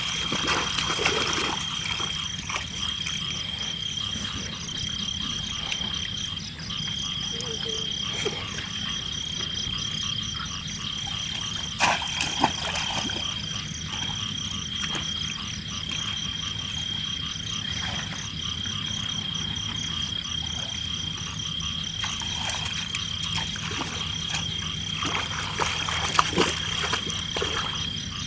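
Chorus of frogs and insects calling in a flooded field: a steady high-pitched insect drone with a fast pulsing trill above it. A couple of brief sharp sounds come through about twelve seconds in and again near the end.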